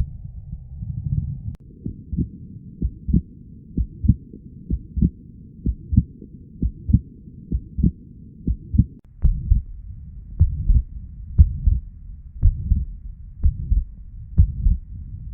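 Chest sounds heard through a stethoscope: sharp heartbeats, about two to three a second, over a low rushing breath noise that swells and fades. The sound is muffled, with nothing high-pitched, and its character changes about a second and a half in and again near nine seconds.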